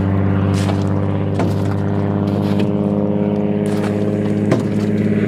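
Piston engine of a floatplane droning steadily at cruise power, a low even hum that holds its pitch.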